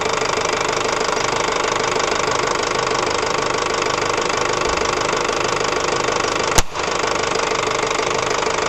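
Ford Transit 2.5 diesel engine idling steadily. About six and a half seconds in, a single sharp crack as the hydrogen-oxygen (HHO) bubbles at the open bubbler are lit.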